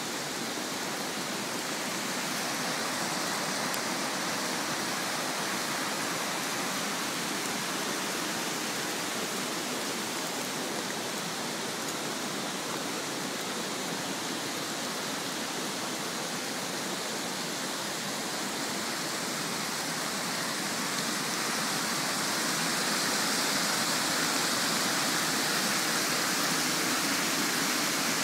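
A stream in flood rushing and splashing fast over the ground, a steady noise of churning water that gets a little louder about three-quarters of the way through.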